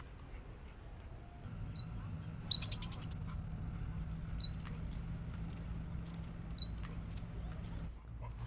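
Squirrel alarm chirps at a dog: single short, sharp, high chirps about every two seconds, with a quick run of about ten rapid chirps some two and a half seconds in, over a low steady rumble.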